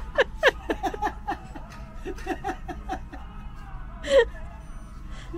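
People laughing in short bursts of voiced breaths, with a louder burst about four seconds in.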